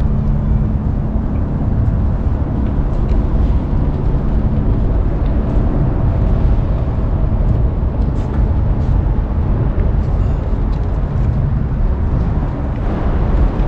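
Steady low mechanical drone with a constant low hum running under it.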